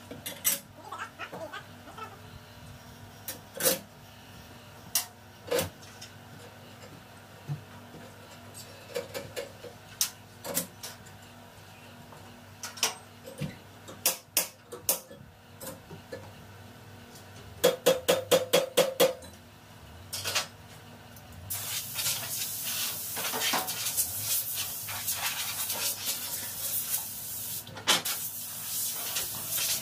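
Metal tools and a circular saw blade clink and knock against a table saw as the blade is changed, with a quick run of about eight clicks some eighteen seconds in. From about twenty-two seconds a compressed-air blow gun hisses steadily, blowing dust off the saw.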